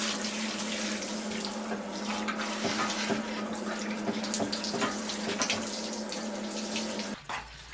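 Water running steadily from a tap into a sink or tub, with a low steady hum and small splashes, shut off abruptly about seven seconds in.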